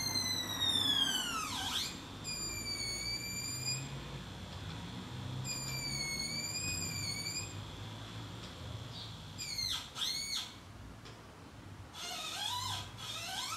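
Electronic whistle-like tones with several overtones from homemade paper-cone sound hats: a long falling glide, two wavering held tones of about two seconds each, then a quick flurry of up-and-down sweeps and rising sweeps near the end.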